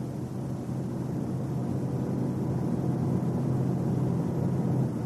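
Car on a road test heard from inside the cabin: a steady low drone over road noise, slowly growing louder as speed climbs toward 90–100 km/h, the range where the body shake gets worse.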